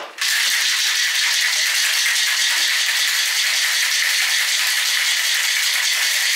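Ice rattling hard inside a metal cocktail shaker shaken steadily, starting a moment in and keeping an even, unbroken rattle.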